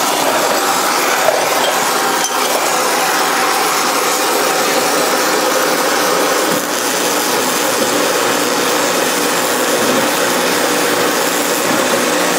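Steady roar of a gas torch preheating a cast iron engine base to keep the weld from cracking, together with the crackle of a stick-welding arc on the cast iron.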